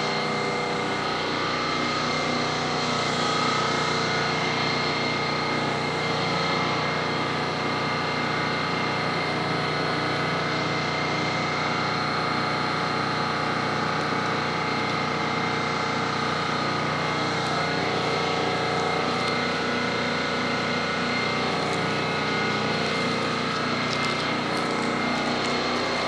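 Steady motor-driven machine hum, unchanging in level and pitch, with several fixed tones running through it.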